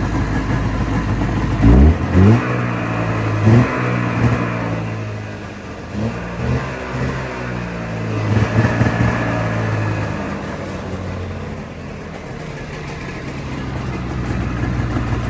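Ski-Doo Formula 500 snowmobile's two-stroke twin engine idling, blipped with short throttle revs: three sharp ones in the first few seconds, smaller ones around six seconds in and a cluster about eight to nine seconds in.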